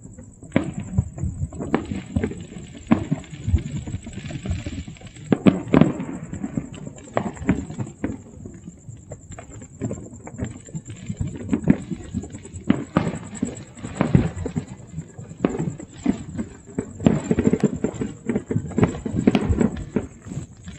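Distant fireworks and firecrackers going off all across a city: an irregular, continual crackle of pops and booms, overlapping and sometimes several a second, with a few louder bangs scattered through.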